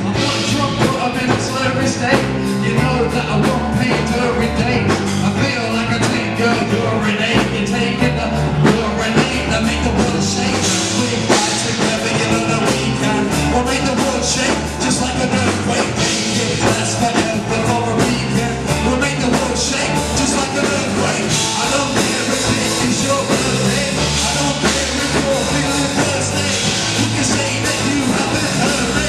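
Rock song played by a band, with a drum kit keeping a steady beat under a stepping bass line.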